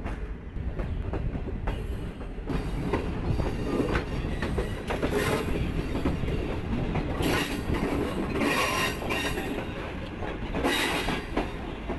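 Wheels of a CRRC Tangshan-built passenger coach running on the rails: steady rumble with repeated clicks over rail joints and points, and several short stretches of high-pitched wheel squeal as the train crosses the turnouts.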